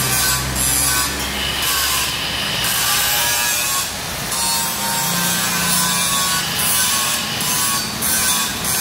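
Electric arc welding on steel, a steady rough crackle with irregular sharper spits.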